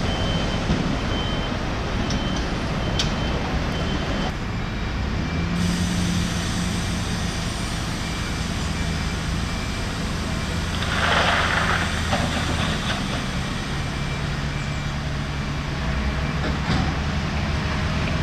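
Heavy diesel engines of a wheel loader and a truck running steadily, with a reversing alarm beeping for the first four seconds or so. About eleven seconds in comes a short hiss of air, about a second long.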